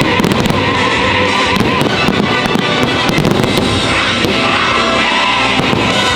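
Fireworks show: loud show music with the bangs and crackle of fireworks bursts over it, the crackling densest in the first second.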